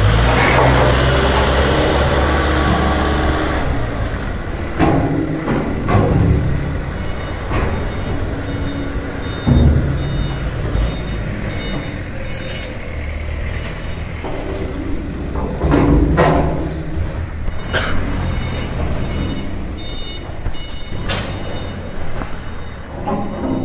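Forklift engine running as the laden forklift climbs a steel loading ramp, followed by scattered knocks and clanks and a repeating high beep in the second half.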